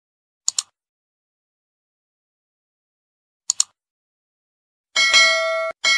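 Mouse-click sound effects: a quick double click about half a second in and another about three and a half seconds in. Near the end a bright notification-bell ding sounds, breaks off briefly, then is struck again and rings on.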